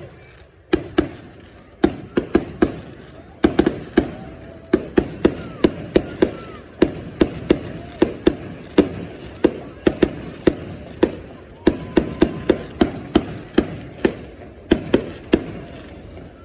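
Fireworks exploding in a rapid, irregular volley of sharp bangs, each dying away briefly after the blast.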